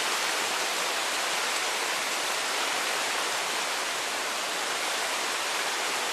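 Floodwater of a swollen creek rushing steadily in a constant, even roar of water.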